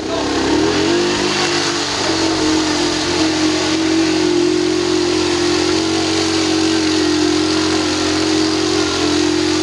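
ATV engine held at high, steady revs as the four-wheeler churns through deep mud. Its pitch sags slightly in the first two seconds, then holds.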